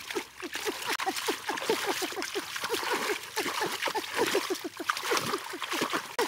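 Hands scooping and flinging water out of a shallow staked fish-trap enclosure in a river: continuous splashing and sloshing, a fast run of short watery plops several a second.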